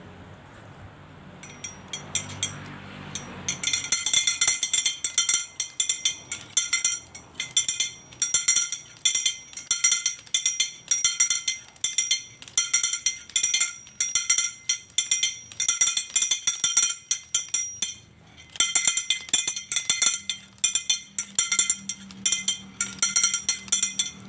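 Homemade recycled-material windmill noisemaker rattling: the metal tabs on its turning shaft rapidly strike a stainless steel pipe, making a fast, continuous metallic clinking and ringing. It is very noisy, like a string of bells. The clatter starts a few seconds in and breaks off briefly about three-quarters of the way through.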